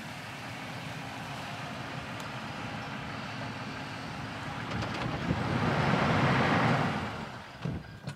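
Toyota 4Runner TRD Off Road's 4.0-litre V6 and tyres as the SUV drives slowly through the grass, building to its loudest about six seconds in, then fading.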